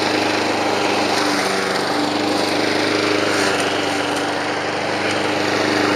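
Walk-behind gasoline lawn mower engine running steadily while mowing, with an even, unchanging pitch.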